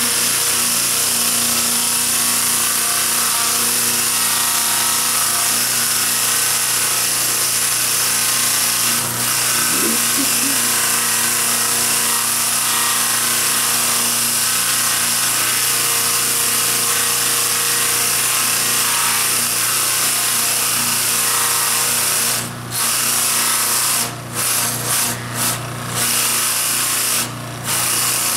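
Small flap-wheel sander on an electric bench motor running steadily with a low hum, its abrasive flaps hissing against a carved wooden figure to soften its sharp edges and clean dirt off the ridges. Near the end the hiss drops out briefly several times.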